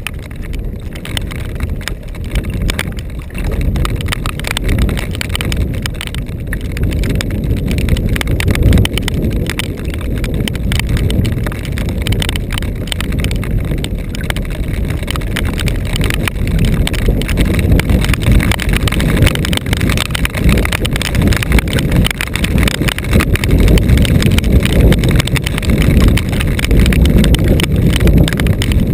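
Strong wind buffeting the microphone in gusts, a loud low rumble that swells and eases, over rain and choppy lake water.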